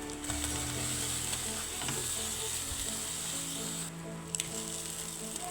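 Food frying in hot oil, a steady sizzle that briefly dies down about four seconds in, with soft background music underneath.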